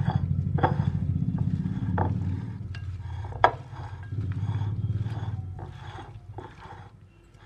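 Hands kneading raw mutton with sliced onions and spice paste in a bowl: repeated wet squelching and squishing over a low rumble, with one sharp click about three and a half seconds in. The rumble fades away over the last two seconds.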